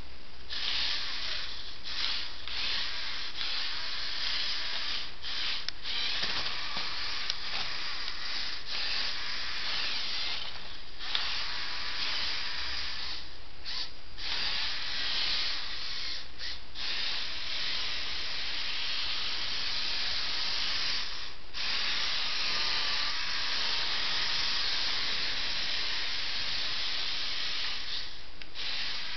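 Motorized Lego truck's small electric motors and plastic gearing whirring as it drives, cutting out briefly a dozen or so times and starting again.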